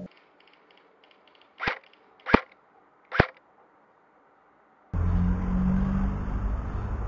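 Three single airsoft rifle shots, sharp cracks a little under a second apart. About five seconds in, a steady rumbling noise takes over.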